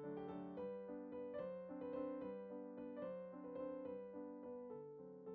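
Background piano music: a slow melody of held notes over changing chords.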